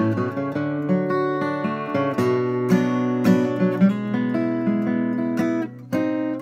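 Steel-string dreadnought acoustic guitar flatpicked: single-note runs over bass notes, mixed with strums. The playing briefly drops away near the end, then resumes.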